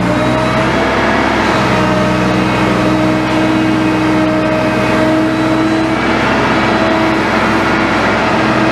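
Liebherr 924 excavator's diesel engine running steadily, with a constant whine above the engine note.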